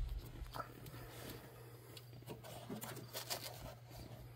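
Faint rustling and a few light taps of a hand handling carpet in a truck's footwell, over a steady low hum.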